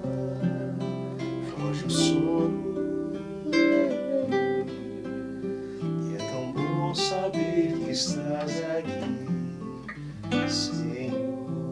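Acoustic guitar playing an instrumental passage of a song, plucked and strummed, with no singing. A few short bright high accents sound over it, about four times.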